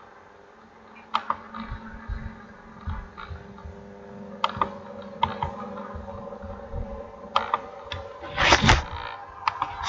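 Scattered clicks of a computer mouse and keyboard, with a louder clatter of clicks about eight and a half seconds in, over a faint steady hum.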